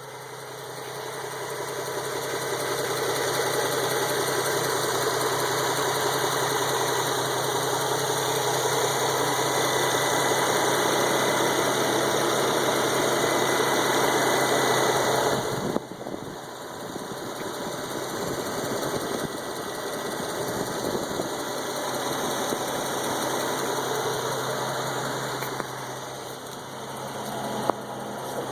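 Car engine idling with a ticking from an exhaust leak: a partly disintegrated gasket at the high-flow catalytic converters leaves a small gap where exhaust escapes. The sound grows louder over the first few seconds and drops suddenly about halfway through.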